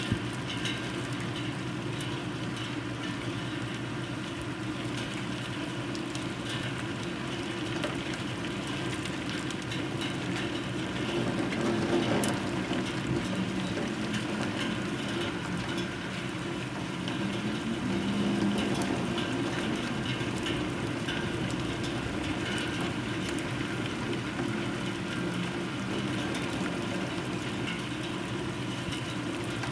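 Heavy rain falling steadily in a thunderstorm, a continuous hiss. A low rumble swells up twice, about twelve and eighteen seconds in.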